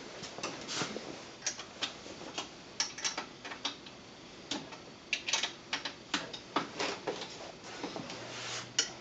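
Light, irregular metallic clicks and clinks of a hand wrench being worked on the bolts of a home-built belt grinder's tool rest and platen, at times several in quick succession.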